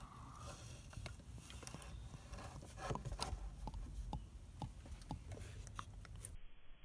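Motor oil being poured from a plastic quart bottle into an engine's oil filler neck: faint glugging, with scattered light clicks and taps from the bottle being handled.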